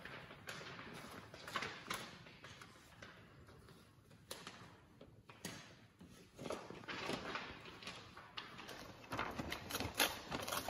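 Faint room sound with scattered light knocks, clicks and rustles, growing busier over the last few seconds.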